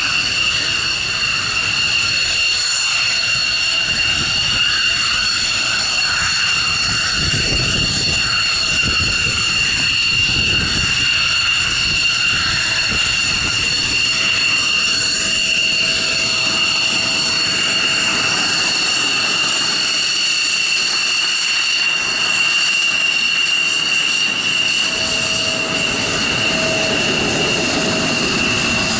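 Belgian F-16's Pratt & Whitney F100 turbofan running at taxi power: a loud, steady jet whine made of several high tones held at one pitch, over a low rumble.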